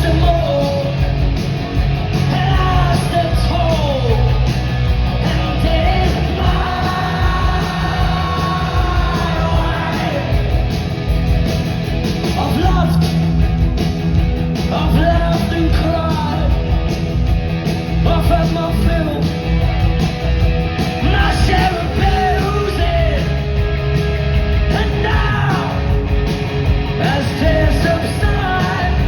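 Live punk rock band playing loudly, with electric guitars, bass and drums and shouted, yelled vocals over them.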